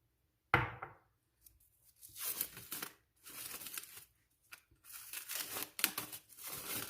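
A single knock, then three stretches of crinkling and tearing as a covering is pulled off the container of onion soaked in honey.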